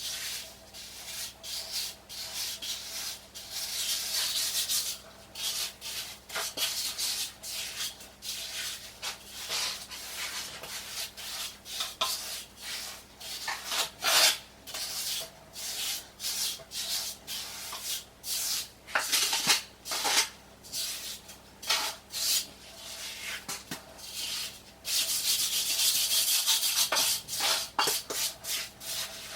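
A trowel scraping and smoothing sand-mix mortar for a shower pan, in a run of irregular rough strokes, with two longer stretches of scraping.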